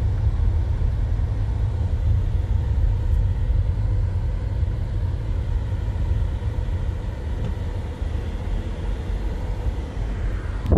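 Steady low rumble of a car rolling slowly over a gravel lane and then grass, heard from inside the cabin. It ends in a brief knock as the phone is handled.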